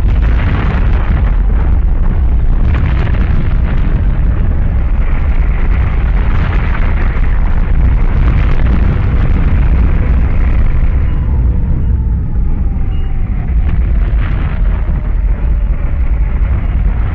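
Loud, continuous rumbling roar of a large explosion, heaviest in the low end, easing somewhat after about eleven seconds.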